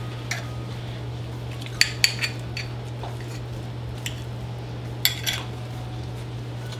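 A metal fork and knife clinking and scraping against a ceramic plate while cutting through a pancake, in a few short sharp clinks that bunch together about two seconds in and again about five seconds in.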